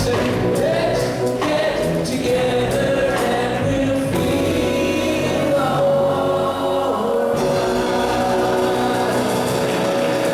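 Church choir singing a gospel-style song with instrumental accompaniment, holding long notes.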